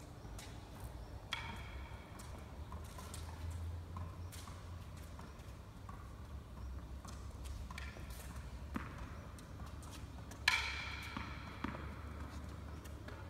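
Tennis ball being tapped up off a racket's strings, a handful of irregular sharp pings with short ringing, a second or more apart, the loudest about ten seconds in.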